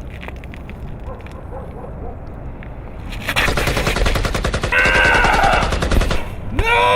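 Rapid automatic gunfire, a fast, even stream of shots lasting about three seconds, starting about three seconds in, with a voice yelling over part of it. A long shout begins near the end.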